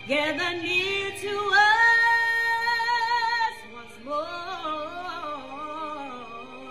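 Gospel song: a voice singing with vibrato, holding one long note, then dropping to a softer, lower phrase about halfway through.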